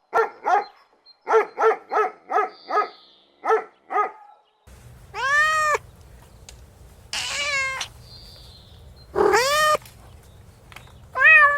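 Goats bleating: first a quick run of about nine short bleats, then, against a steady background hum, long drawn-out bleats about every two seconds.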